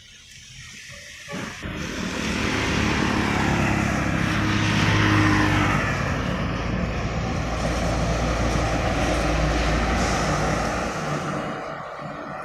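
A large cargo truck's diesel engine and tyres pass close by on the road, with a motorcycle going by at the same time. The sound swells from about a second in, is loudest in the middle, and fades away near the end.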